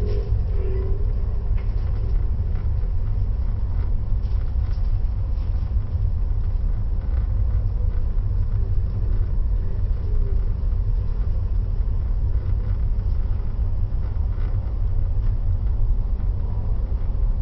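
Steady low rumble from a moving vehicle, heavy in the bass and with no breaks.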